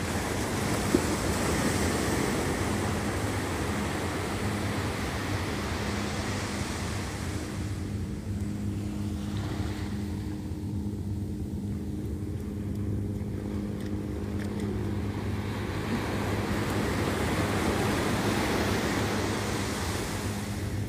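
Small waves breaking and washing up on a sandy beach, swelling and easing twice, over a steady low motor hum.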